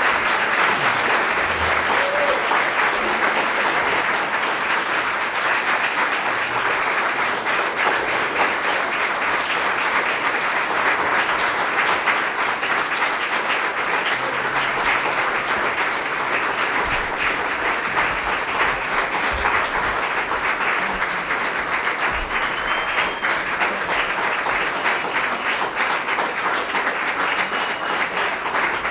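Audience applauding, a dense, even clapping at a steady level.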